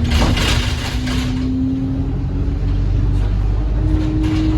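Bus engine and drivetrain running with a low rumble and a steady whine; the whine rises slightly about four seconds in, then drops back. A hiss sounds over the first second or so.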